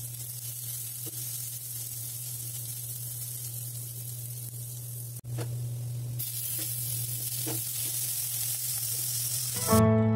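Chopped onion, garlic, coriander seeds and curry leaves sizzling in hot oil in a steel kadai, with a few clicks of stirring; the sizzle grows louder about six seconds in as sliced tomato goes into the pan. Acoustic guitar music starts near the end.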